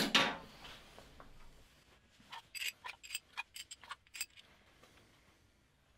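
A single ringing metal clink at the start, then a quick run of about ten light metallic clicks as bolts are handled and pushed back into a removed camshaft bearing cap.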